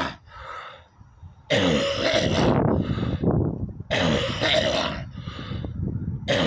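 A man's harsh, hacking cough and throat clearing. The tail of one fit is heard at the start, then three more loud fits come about two and a half seconds apart, each lasting a second or more.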